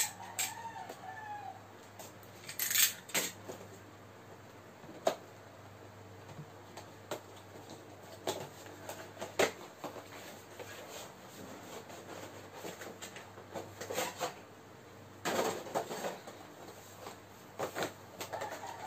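Cardboard action-figure box being opened and its plastic blister tray pulled out: scattered crinkles, rustles and clicks of cardboard and plastic, with a few sharper snaps. A rooster crows briefly near the start.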